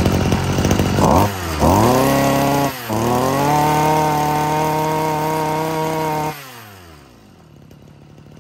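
Mitsubishi TL26 two-stroke brush-cutter engine running unloaded on a stand. It revs down and back up twice, then holds a steady high speed, and is shut off about six seconds in, its pitch falling as it winds down to a stop.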